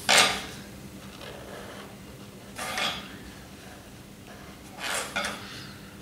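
Short scratching strokes of a marker pen drawing on paper: one right at the start, one near the middle and a double one near the end, over a faint steady hum.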